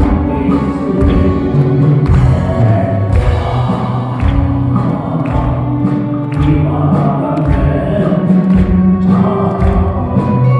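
Live music with singing over a band, with a steady low beat.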